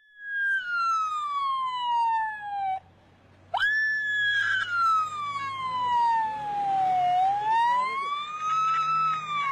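A 10-year-old boy imitating an ambulance siren with his voice: a high wail that glides slowly down, breaks off, then leaps back up and slides down and up again.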